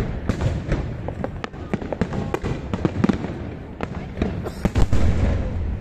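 Aerial fireworks bursting overhead: a dense, irregular run of sharp cracks and bangs, with a louder deep boom and rumble about five seconds in.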